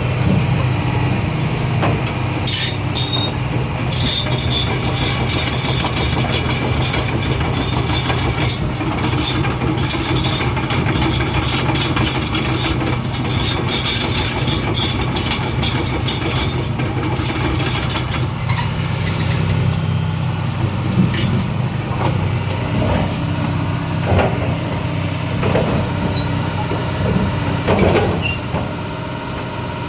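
Doosan DX225 excavator's diesel engine running steadily, with scattered sharp knocks and clanks from the machine; the engine note shifts about two-thirds of the way through.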